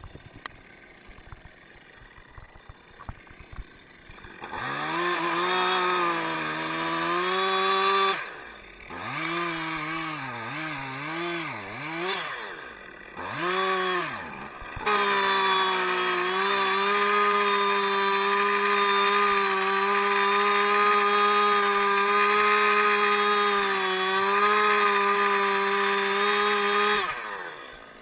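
Two-stroke chainsaw revving up about four seconds in and blipped up and down a few times. It is then held at high revs in a long, steady cut, with small dips in pitch, and drops off near the end.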